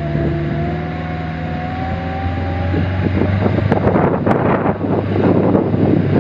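Kubota diesel engine of a hydraulic-drive swamp buggy running under load, with a thin whine from the hydraulic drive. About halfway through, a rough churning of water grows louder as the wheels dig in, trying to get the buggy floating.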